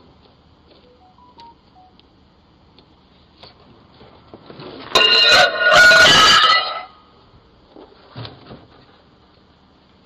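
A glass microwave turntable dish drops out of its box and shatters on the concrete porch: a loud crash of breaking glass with ringing shards, about five seconds in, lasting under two seconds. A soft thump follows a couple of seconds later.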